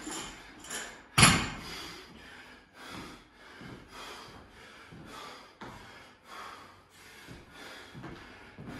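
A 75-pound barbell loaded with Rogue bumper plates is dropped onto the gym floor about a second in, landing with one loud bang. Fast, heavy breathing follows, about one breath every 0.7 s.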